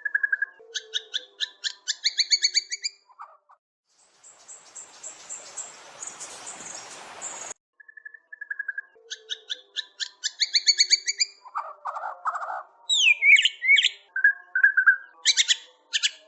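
White-rumped shama singing in full voice: phrases of rapid repeated notes and clear whistles. In the middle a few seconds of hiss-like noise come in and cut off suddenly.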